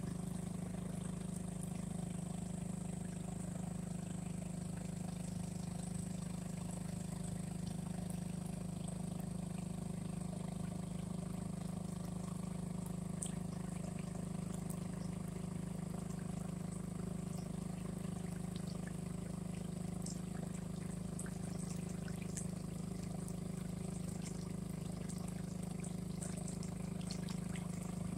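Boat motor running at a steady speed, a low, even drone that does not change.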